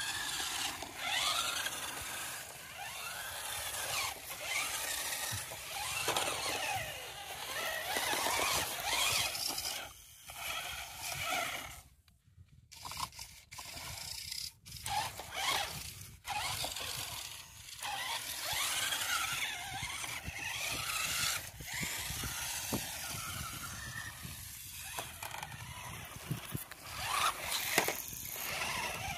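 Small electric motors and plastic gearboxes of toy RC cars whining, rising and falling in pitch as the cars speed up, slow down and turn, with short pauses where they stop.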